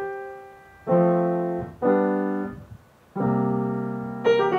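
Grand piano played slowly: five full chords struck about a second apart, each left to ring and fade before the next.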